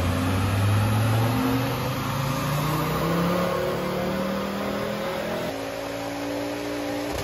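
Turbocharged 2.5-litre five-cylinder engine of a Mk2 Ford Focus ST under load on a rolling road, its revs climbing steadily for about five seconds in a power run. Then the climb stops and the note drops back.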